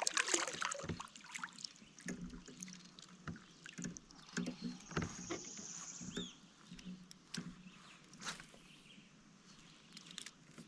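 Light, scattered knocks and clicks of gear being handled in a kayak, with a brief high trill about halfway through.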